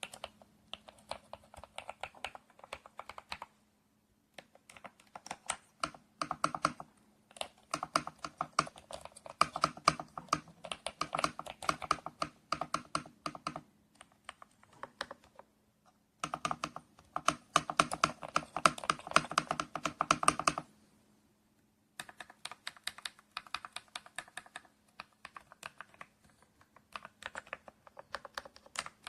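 Typing on a gasket-mounted Kisnt wireless mechanical keyboard with linear switches: quick runs of keystroke clacks in bursts, broken by short pauses.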